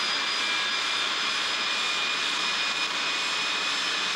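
Steady machine noise: an even hiss with several high, level whining tones held throughout.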